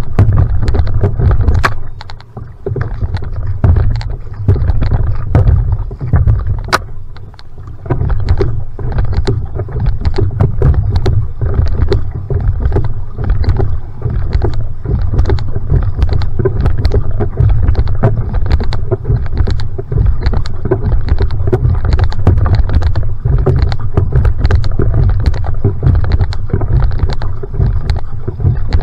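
Single outrigger canoe (va'a) being paddled hard through choppy water: repeated splashes of the paddle blade and water slapping against the hull, over a heavy low rumble of wind on the hull-mounted camera's microphone. The sound dips briefly twice, about two and seven seconds in.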